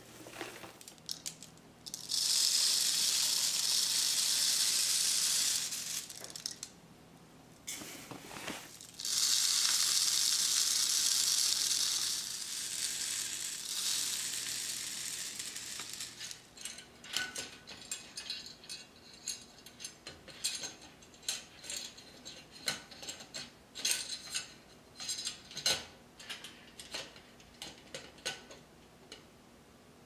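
Mixed birdseed poured from a scoop through a plastic funnel into a clear tube bird feeder: two steady rushing hisses of about three seconds each, then a fainter trickle. After that, a long run of light clicks and clinks as the feeder's metal lid and wire cage are handled.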